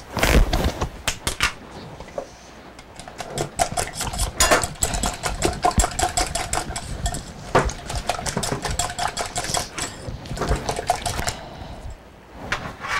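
A utensil beating eggs and milk in a mixing bowl: a few knocks at the start, then from about three seconds in a long, fast run of clicking strokes against the bowl, which stops shortly before the end.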